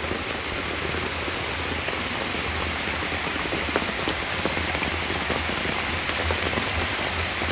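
Heavy rain falling on a muddy, waterlogged yard: a steady hiss with scattered faint drip ticks.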